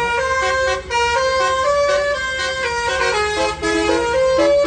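Musical multi-tone bus horn of the 'telolet' kind playing a short tune. Several horn notes sound together and step from pitch to pitch.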